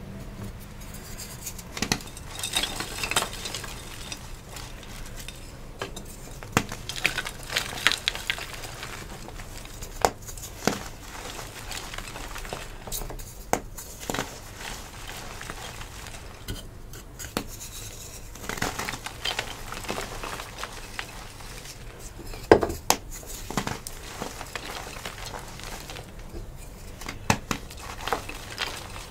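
Dyed gym chalk slices and blocks crushed and crumbled by hand: dry crunching and crackling as the chalk breaks down into powder, with sharp snaps scattered throughout, the loudest a little past two-thirds of the way in.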